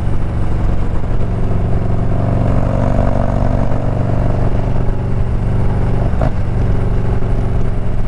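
The Milwaukee-Eight 117 V-twin of a 2021 Harley-Davidson CVO Road Glide running steadily at cruising speed, heard from the rider's position along with road noise.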